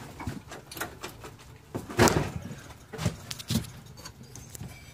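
Scattered knocks and clatters as an EZGO golf cart's rubber drive belt is worked by hand up onto the drive pulley, the loudest about two seconds in.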